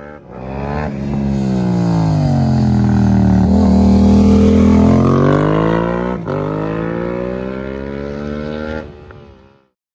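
Yamaha R7's 689 cc parallel-twin engine revving as the bike rides off, pitch swinging up and down with a brief break in the note about six seconds in. It is loudest in the middle and cuts off abruptly near the end.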